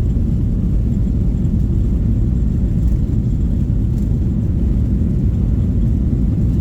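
Steady low rumble of a passenger airplane's cabin: engine and airflow noise heard from inside.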